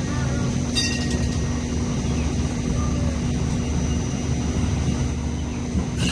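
Hong Kong MTR light rail vehicle running at the platform: a steady low rumble with a constant electric hum, and short high-pitched clicks about a second in and again near the end.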